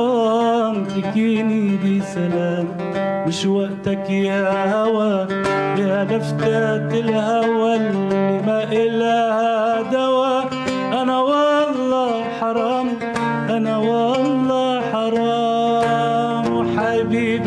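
Godin oud plucked in a running melody, accompanying a man's singing voice.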